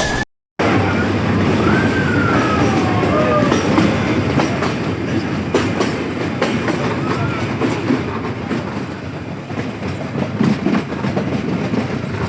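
Nilgiri Mountain Railway toy train running: a steady rumble with its wheels clicking over the rail joints. A few short wavering tones come in the first few seconds, after a brief cut in the sound at the start.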